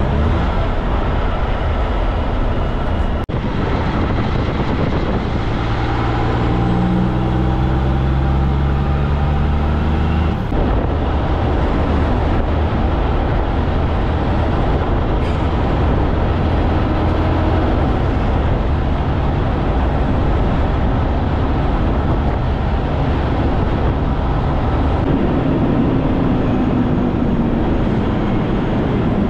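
Kenworth K200 cabover truck's Cummins diesel engine pulling at road speed, heard from outside the cab with steady road and wind noise. The engine note climbs slowly for a few seconds, then changes abruptly about ten seconds in, and the truck runs on steadily.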